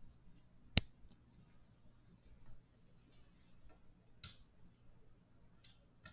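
Two sharp clicks about three and a half seconds apart, the first much the louder, with a few fainter ticks near the end over faint hiss.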